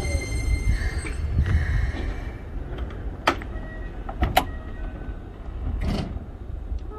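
Keikyū 2100-series electric train coming to a halt at a station platform. Its whine dies away about a second in, leaving a low rumble. There are two sharp clicks around the middle and a brief hiss near the end.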